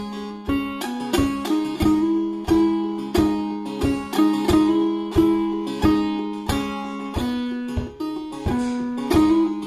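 Iranian setar with four strings tuned C-C-G-C, played clawhammer style: sharp downstrokes about every half second, each ringing and dying away, over an open string that drones steadily beneath a slow melody.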